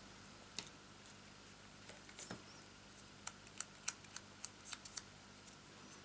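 Small pieces of cardstock being handled at a craft table: faint, with a run of about a dozen small, sharp, irregular clicks in the second half.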